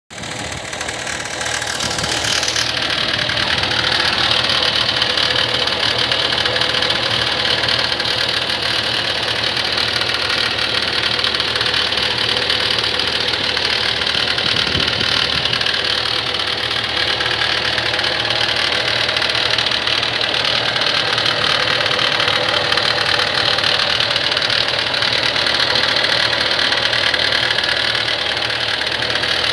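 Hydraulic excavator's diesel engine running steadily with an abnormal noise in the engine. The sound builds over the first two or three seconds, then holds level.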